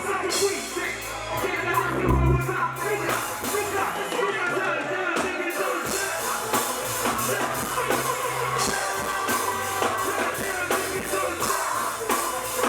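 Music with drums and bass played through a stage sound system; the bass drops out about four seconds in and returns about two seconds later.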